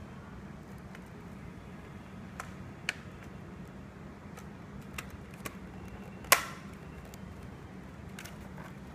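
Hard plastic monitor being handled and set into a foam-lined aluminium carry case: scattered light clicks and knocks, the loudest a sharp knock a little after six seconds in, over a steady low hum.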